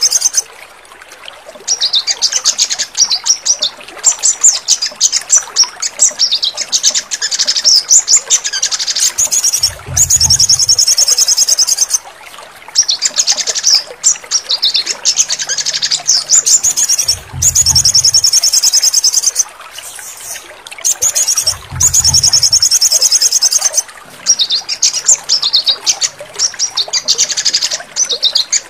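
Little spiderhunter (sogon) song: long trains of rapid, evenly repeated high notes, one train after another with short breaks between them. A few brief low thumps come in between, about ten, seventeen and twenty-two seconds in.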